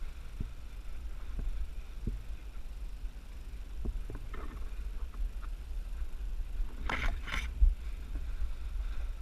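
Steady low rumble of wind and handling noise on a body-worn action camera, with a few faint clicks and two short rustling noises about seven seconds in.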